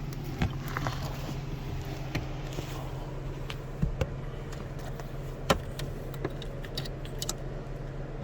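Scattered light metallic clicks and rattles of a dash-mounted parking brake release and its cable being worked by hand, over a steady low hum.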